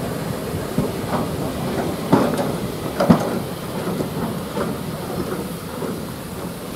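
Heritage railway passenger coaches rolling slowly past, their wheels giving irregular knocks over rail joints and pointwork above a steady rumble, with steam hissing from beneath the coaches.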